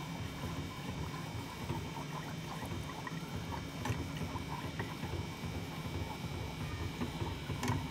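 Long wooden chopsticks stirring flour into hot milk and butter in a small saucepan, with light scattered clicks and a couple of sharper taps against the pan, over a low steady rumble.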